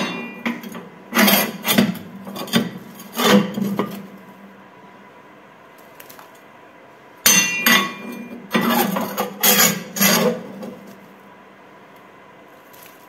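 A small metal ash shovel scraping and scooping wood ash on the floor of a wood-stove firebox. It comes in two spells of several strokes each, with a pause of about three seconds between them.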